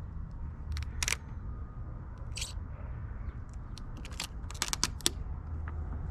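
Thin vinyl overlay film crinkling and clicking as fingers slide and press it on a wet tail-light lens: a scatter of short crisp clicks, most of them bunched about four to five seconds in, over a steady low rumble.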